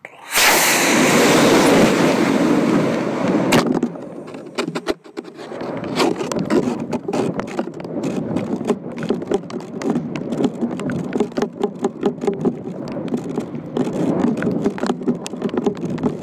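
F-class model rocket motor lighting with a sudden loud rush that burns for about three and a half seconds and then cuts out. After that comes continuous crackling, buffeting wind noise on the microphone as the rocket coasts and comes down.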